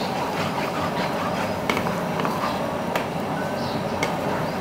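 Cashew nuts deep-frying in hot oil in a skimmer held in a wok: steady sizzling with scattered small pops and crackles.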